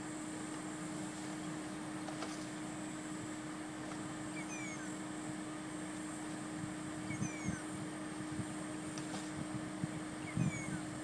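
A steady low engine hum, with three short, high falling chirps a few seconds apart.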